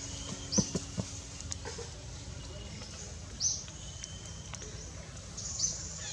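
Outdoor ambience with a few short, high-pitched chirps spaced two to three seconds apart, and a couple of sharp clicks near the start.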